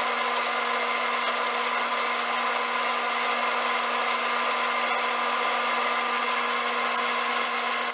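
Grizzly G4000 metal lathe running steadily while a half-inch drill bit in the tailstock chuck bores into a spinning aluminum workpiece. It is a steady machine whine with several held tones over a cutting hiss.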